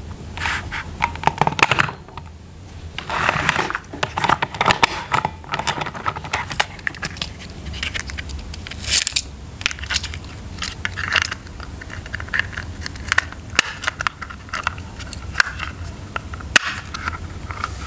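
Plastic toy packaging and toy train pieces being handled: crinkling, rustling and scraping with many sharp clicks scattered throughout.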